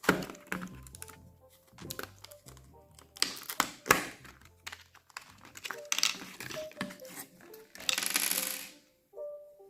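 Background music, with scattered sharp clicks and a brief crinkling rustle near the end as items are handled.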